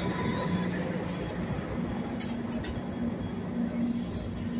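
Trinity Railway Express commuter train finishing its stop: a brief high wheel squeal fades out in the first second. After that the standing train gives a steady low hum, with a few sharp clicks about two seconds in.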